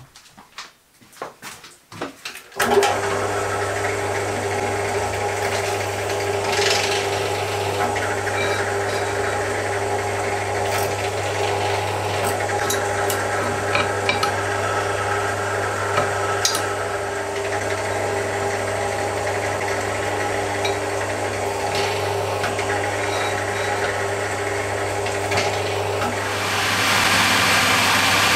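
A few handling clicks, then a bench drill press starts about two and a half seconds in and runs with a steady motor hum and scattered light ticks while drilling through a clamped part to transfer holes. Near the end a louder, hissier drilling machine takes over.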